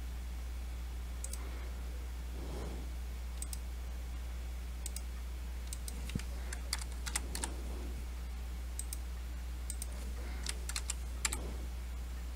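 Scattered computer keystrokes and mouse clicks, some in quick little runs, over a steady low hum.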